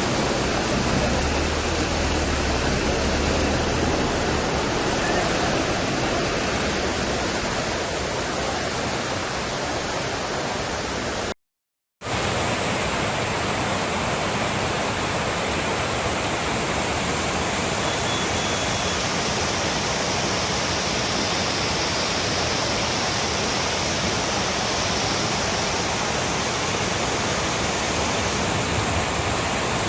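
Heavy monsoon rain, a steady loud hiss with no distinct drops. About eleven seconds in it cuts to silence for half a second, then carries on from a second recording.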